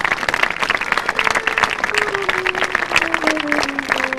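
Audience applauding, a dense clatter of many hands clapping. From about a second in, an instrument plays a slow descending line of single held notes underneath.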